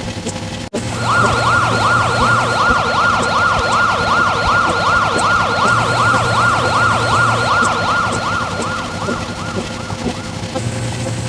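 Emergency vehicle siren in a fast yelp, sweeping up and down about three times a second. It cuts in about a second in and fades near the end, over a low steady hum.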